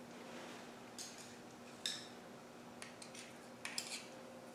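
A few faint, short clicks and light metallic clinks as small parts and a flashlight are handled, spread over the few seconds with two close together near the end.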